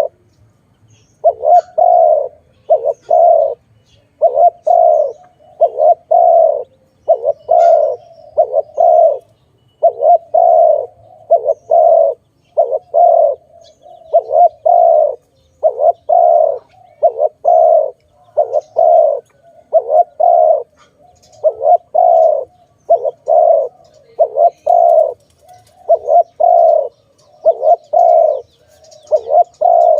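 Spotted dove cooing over and over: short low coos that come in quick pairs and threes with brief gaps, starting about a second in after a short pause.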